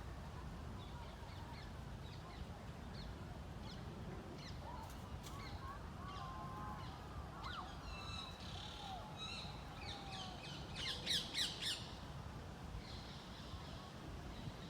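Wild birds calling, with scattered short chirps and a few whistled glides, then three loud harsh squawks in quick succession about eleven seconds in, over a steady low outdoor rumble.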